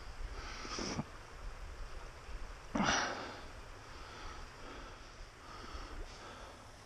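A person sniffing through the nose: a short sniff about a second in, then a sharper, louder one about three seconds in that fades quickly.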